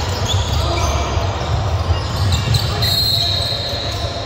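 Basketball being dribbled on a hardwood gym floor, with players' and spectators' voices echoing in a large hall. Near the end a high steady tone sounds for about a second and a half.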